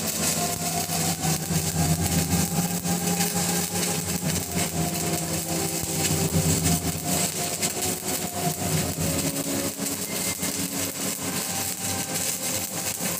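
Stick (SMAW) welding arc burning with a 7016 low-hydrogen electrode: a continuous dense crackle over a steady low hum.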